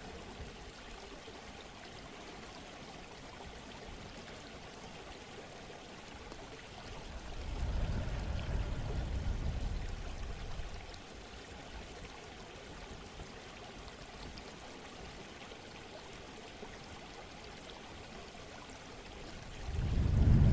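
Running water as a steady rushing background. It swells louder and deeper for a few seconds about a third of the way in, and again near the end.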